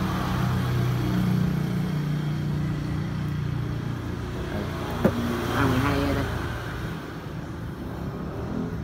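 A road vehicle's engine running as it passes, strongest in the first few seconds and then fading, with a single sharp knock about five seconds in.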